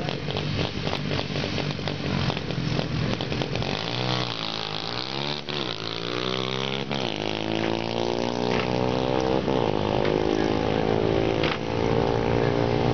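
Small 125 cc racing motorcycle engine running hard: its pitch dips and rises a few times as it is revved near the middle, then holds at a steady high note.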